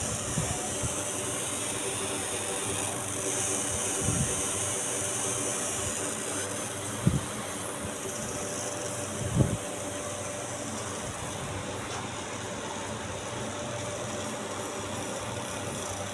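Laser marking machine running with a steady fan hum and high hiss, with a few short low knocks about four, seven and nine seconds in.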